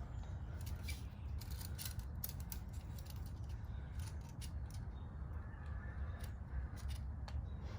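Hand wrench clicking in short, irregular strokes as bolts on the motorcycle's rear chain adjustment are tightened, over a steady low rumble.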